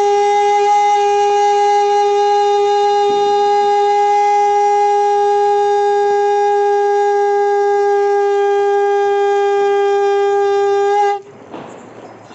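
Conch shell (shankh) blown in one long, loud, steady note that holds its pitch and stops abruptly about eleven seconds in.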